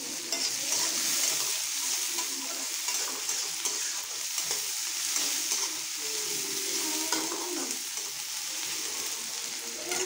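Freshly added chopped onions sizzling in hot oil in a steel kadhai while being stirred around the pan. The sizzle is strongest in the first half and eases a little after about six seconds.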